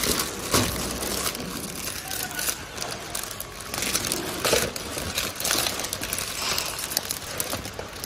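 Clear plastic bags crinkling and rustling as they are handled, in irregular crackles with a few sharper bursts.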